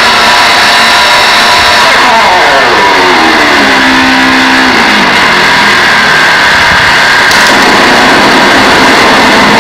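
Harsh noise music played live and very loud: a dense, distorted wall of sound, with a cluster of pitched tones sliding downward from about two seconds in and settling low around the middle.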